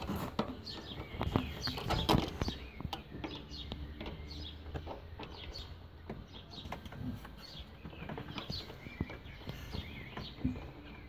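Light clicks and knocks of hands and small parts being handled in a car's engine bay while an intercooler pipe and its clamp are fitted, louder in the first two seconds. Short high chirps, like birds, sound throughout.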